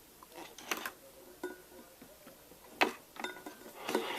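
Small metal putty tins being handled and set down: a few light clicks and knocks, with one sharper knock a little before three seconds in.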